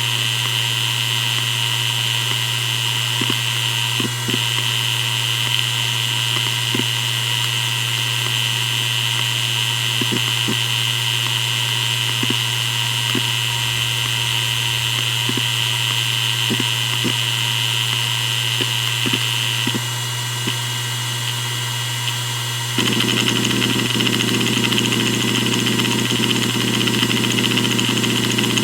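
Maxtor DiamondMax 10 6V300F0 7200 rpm hard drive spinning with a steady hum and a high whine, with scattered, irregular head-seek ticks. About 23 s in, the seeking turns into a louder, continuous chatter.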